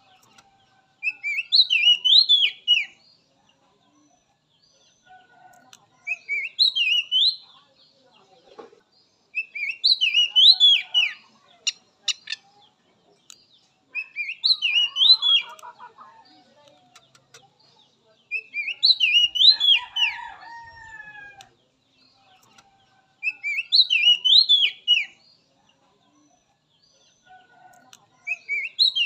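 Oriental magpie-robin (kacer) singing: the same short, rich whistled phrase repeated about every four to five seconds, seven times. A fainter, lower drawn-out call from another bird comes about two-thirds of the way through.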